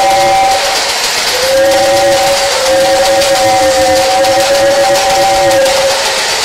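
A long held musical note, steady in pitch with a few overtones, over a constant hiss. It stops about a second in, returns after a short pause, and holds until near the end.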